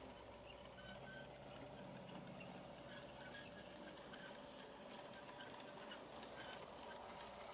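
Faint, steady hum of an LGB G-scale model electric locomotive's motors, with light patter and clicking of its wheels on the track.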